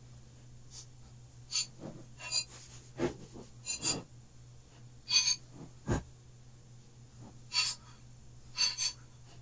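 Flour being scooped from a jar and scattered over pie dough on a wooden board, heard as a series of short, scratchy swishes. A dull thump about six seconds in is a dough half being set down on the board. A low steady hum runs underneath.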